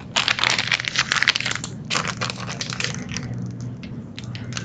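Plastic crinkling and crackling as a plastic piping bag of buttercream is squeezed and handled. It is a dense run of crackles for the first couple of seconds, then scattered single clicks.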